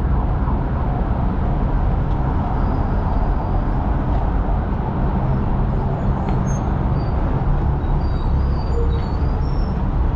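Steady street traffic: car and bus engines running and passing along the avenue, a constant low rumble with no break.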